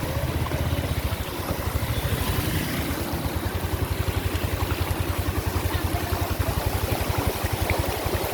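A vehicle engine running steadily with a rapid, even low throb, over a constant rush of noise.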